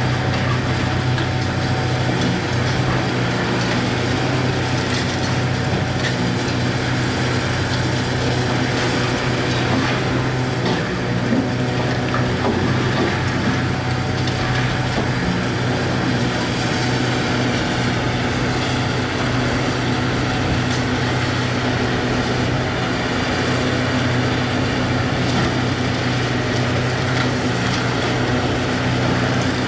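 Hitachi 670 LCH excavator's diesel engine running steadily under load, a constant low hum, with occasional knocks and crunches of demolition debris.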